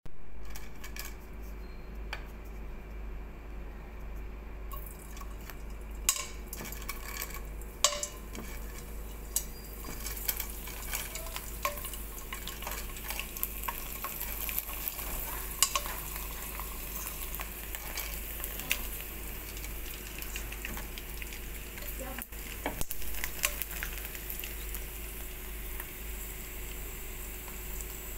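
Fish crackers deep-frying in hot oil: the oil sizzles and crackles as the crackers puff up. The sizzle grows from about five seconds in, with scattered sharp clicks and pops.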